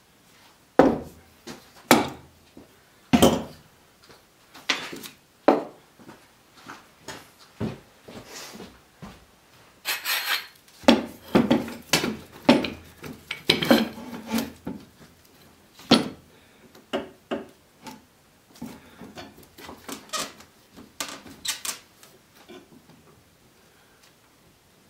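Metal bar clamps being set on wooden boards on a workbench: a run of irregular knocks and clanks as the clamps are put down and hit the wood, with some sliding and scraping while they are adjusted and tightened, busiest about ten to fifteen seconds in.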